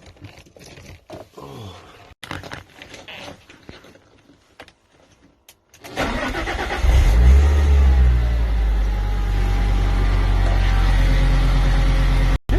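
Light clicks and knocks, then about six seconds in the Fiat Coupe 20V Turbo's turbocharged five-cylinder engine cranks, catches with a brief rev and settles into a steady idle: a first start after weeks standing.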